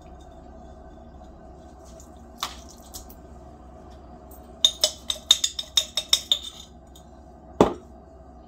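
A metal spoon clinking against a glass jar of wet seasoning: a couple of light clicks, then a quick run of about ten clinks, some five a second, for about two seconds. Near the end comes a single heavier knock, the glass jar being set down on the wooden counter.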